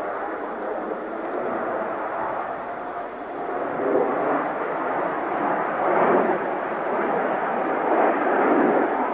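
Distant jet engines of F/A-18 Hornets flying in formation: a rushing rumble that swells several times and is loudest about six seconds in.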